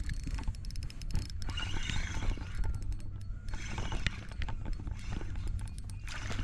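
Fishing reel being cranked while a fish is brought in: irregular clicks and rattles over a steady low hum.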